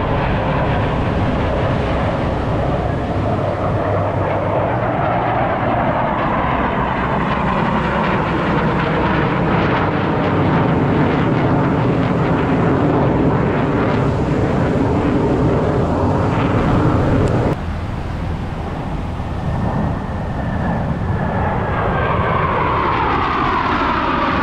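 Blue Angels F/A-18 Super Hornet jet engines, loud and continuous. The level drops suddenly about 17 seconds in, and near the end a jet passes with a falling whine.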